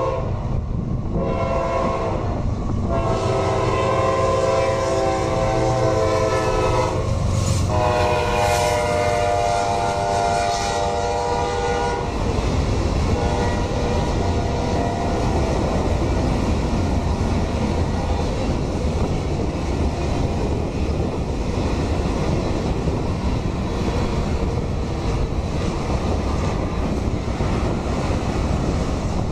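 Kansas City Southern freight locomotive's horn, sounded for a grade crossing: several blasts of a multi-note chord broken by short gaps, the last one held about five seconds. It stops about twelve seconds in, and the train then rolls past with steady wheel-on-rail rumble.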